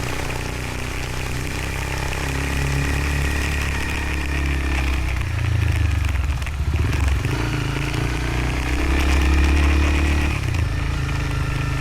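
Motorcycle engine running on the move, its revs rising and falling a few times, louder in the middle and again later on.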